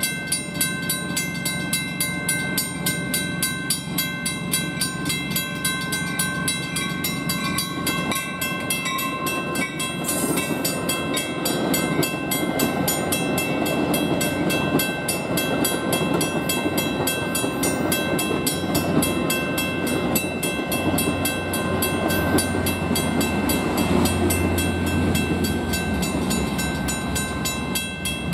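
Railroad grade-crossing bells ringing steadily with evenly repeated strikes. From about ten seconds in, a Metra commuter train hauled by an MP36PH diesel locomotive rolls through and its rumble grows over the bells, easing off near the end as the train clears.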